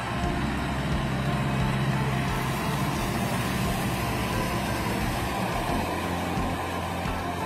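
Tractor engine and tractor-drawn harvester running as they pass close by. The tractor's low steady engine note fades about two and a half seconds in, leaving the steady noise of the harvester and wagon rolling past.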